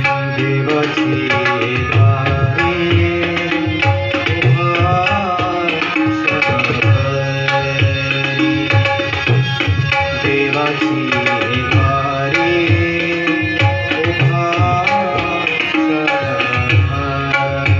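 Tabla playing a steady rhythm, its low bass-drum strokes pulsing under a sung melody: accompaniment to a Marathi devotional abhang.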